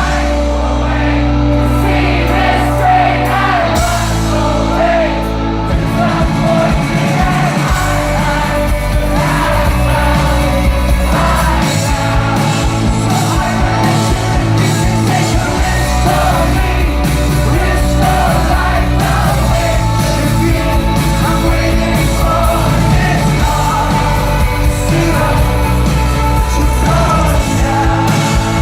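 Rock band playing live, with a male lead vocal sung over guitars, bass and drums.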